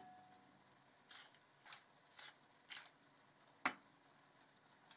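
Near silence in a small kitchen, broken by a few faint short rustling hisses and one sharp click about three and a half seconds in.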